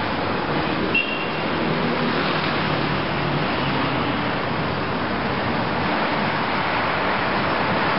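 Steady city street traffic noise, cars passing below a window, with a brief high-pitched beep about a second in.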